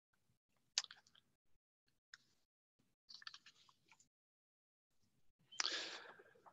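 Faint mouth clicks and lip noises from a man at a microphone, then a short intake of breath near the end.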